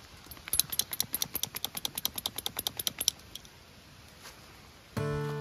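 Rapid light metallic clicking and jingling, about ten a second for some two and a half seconds, from the leash clip and harness hardware of a dog trotting on a lead. Background music starts near the end.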